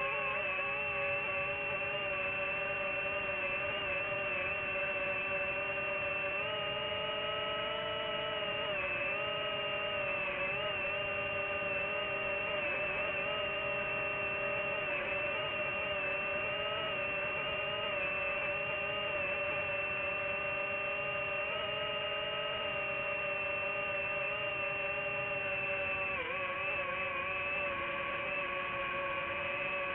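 Multirotor drone's electric motors and propellers whirring in flight: a steady whine of several pitches that waver slightly.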